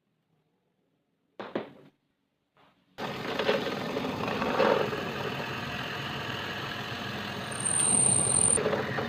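A single short knock in near silence, then a machine starts running abruptly about three seconds in and keeps going with a steady, dense mechanical noise that swells louder now and then.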